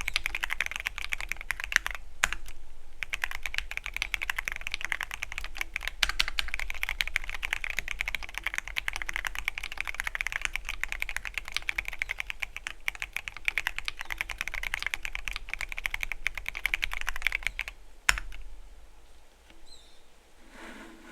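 Typing on a Keychron Q13 Pro Max mechanical keyboard with red linear switches: a fast, continuous clatter of keystrokes. There is a brief pause about two seconds in, and the typing stops after a final sharp clack about eighteen seconds in.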